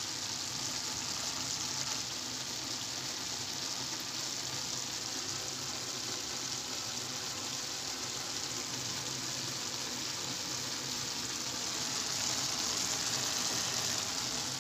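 Pan of chana pulao, rice and chickpeas, sizzling steadily on the hob as its cooking water cooks off; a little louder near the end.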